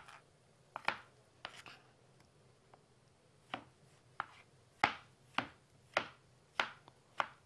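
Knife slicing tomatoes on a plastic cutting board: sharp taps of the white ceramic blade striking the board, about ten in all. The taps come irregularly at first, pause briefly about two seconds in, then fall into a steady rhythm of a little under two a second.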